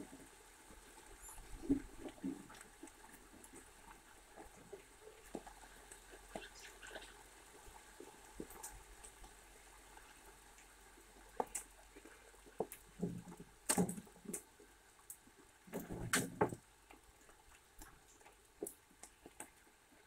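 Eurasian red squirrel feeding at a wooden seed tray, rummaging through the seeds and cracking sunflower husks: scattered small clicks and crackles. A few louder knocks come in clusters about two thirds of the way through.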